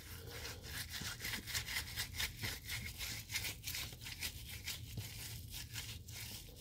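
Fresh, wet tea leaves being rolled hard between the palms: a quick, even run of squishing, rubbing strokes of skin on damp leaves. The rolling bruises and crinkles the leaves and presses out their green juice, the step before they are dried into tea.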